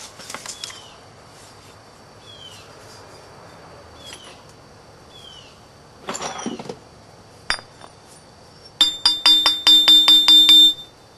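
A piece of heat-treated chert is tapped about ten times in quick succession near the end, each strike giving a glassy, ringing clink. The clear ring tells a knapper that the cooked stone is still sound and uncracked. Earlier there are a few short scraping rustles, and a bird repeats a short falling chirp.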